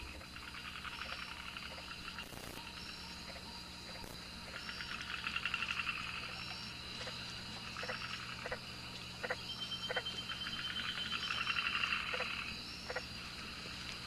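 Night rainforest chorus of frogs and insects: rapid pulsing trills that swell twice, over a steady high drone, with short high chirps about once a second and a few sharp clicks.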